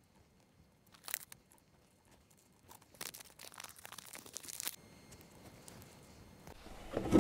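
Fingers pressing seeds into dry potting mix of peat moss, compost and perlite in plastic cups and pinching it closed. A brief scratch comes about a second in, then a couple of seconds of soft crunching, crackling rustle.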